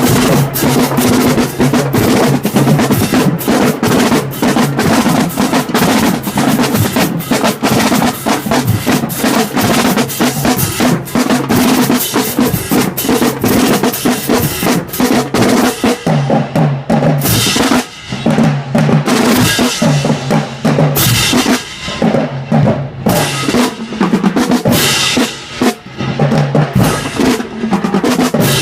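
High school marching band drumline playing a march-in cadence: fast snare strokes and rolls over pitched bass drums. Past the middle the pattern opens into more separate hits with brief breaks.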